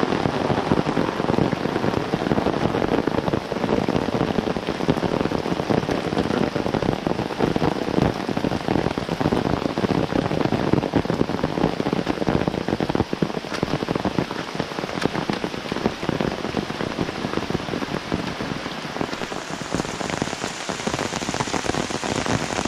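Steady rain, a dense patter of many drops.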